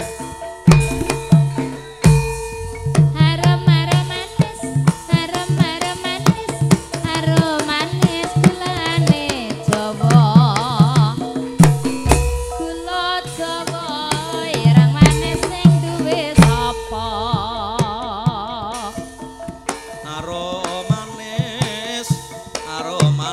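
Javanese gamelan music for a tayub dance: kendang hand drums beat out a busy pattern over steady ringing metallophone tones, with a singer's wavering voice above.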